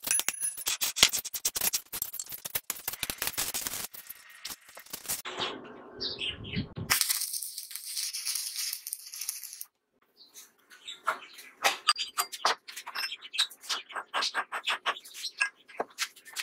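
Stick (arc) welding with a rod electrode: the arc crackling and sizzling in stretches that stop abruptly, mixed with many sharp clicks and taps.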